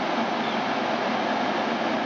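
SEPTA Silverliner IV electric commuter train approaching along the platform: a steady rumble of wheels on rail with a faint steady whine, growing slightly louder as it draws near.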